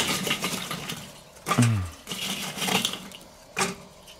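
Gloved hand scraping leftover charcoal briquettes in a kettle grill and dropping them into a metal chimney starter: gritty rustling and a few sharp clinks. A short falling tone is heard about one and a half seconds in.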